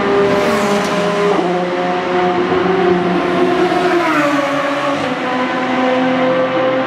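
Endurance race cars' engines running at high revs, several at once, with the pitch dropping in sudden steps a few times as the cars change gear or go past.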